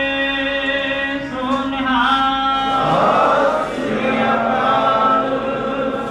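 A Sikh congregation chanting together in long, drawn-out notes, with a blur of many voices about three seconds in.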